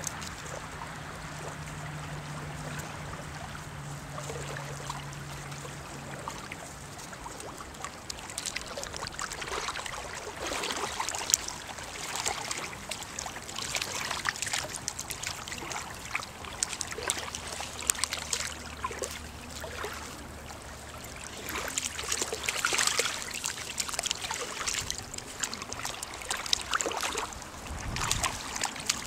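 A dachshund wading in shallow sea water at the shoreline, its paws splashing irregularly in clusters over the lapping of small waves on sand. A steady low hum sounds for the first several seconds.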